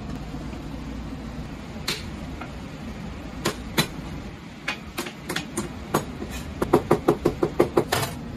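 Chinese cleaver chopping on a plastic cutting board, mincing shrimp and squid: scattered single chops, then a fast run of about six chops a second near the end, over a steady low hum.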